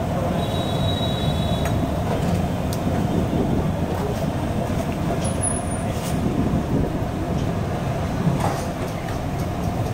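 Aloo patties shallow-frying in oil on a large flat iron tawa, the oil sizzling under a steady low rumble, with a few faint clicks.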